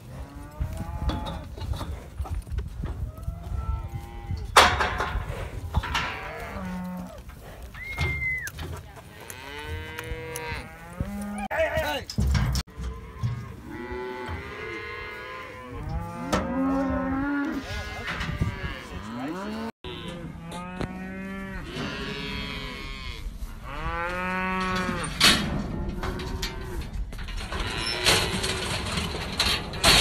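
Herd of cattle mooing over and over, many long calls overlapping one another.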